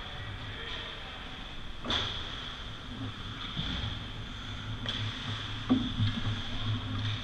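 Ice hockey play around the net: sharp clacks of puck and sticks, about two seconds in, again near five seconds, and loudest just before six, over skates scraping the ice. A steady high hum runs underneath.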